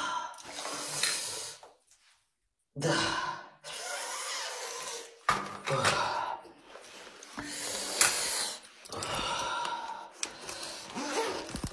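A man breathing hard in uneven bursts with voiced groans, in pain.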